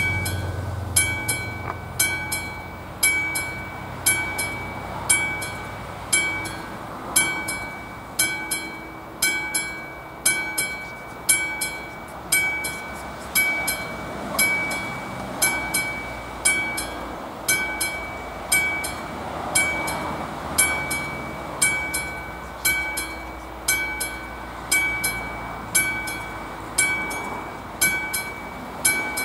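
Railway level crossing warning bell striking steadily about once a second, each stroke ringing on, while the crossing is closed. A low rumble fades out about a second in.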